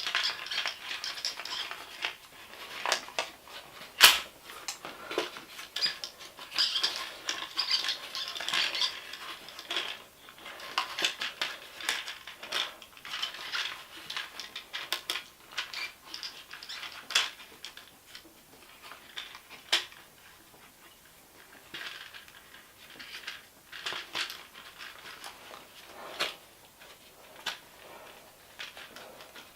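Irregular light clicks, taps and rattles of small plastic and metal parts being handled, with one sharper click about four seconds in: the recoil starter pulley of a Stihl handheld leaf blower being wound clockwise to tension its spring for the new pull cord.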